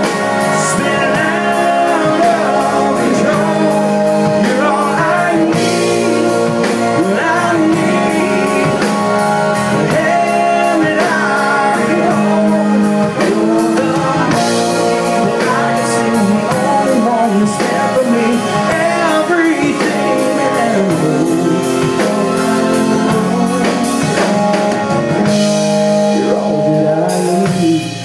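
Instrumental break in a country song: a lead melody that slides between notes, over guitar and a drum kit.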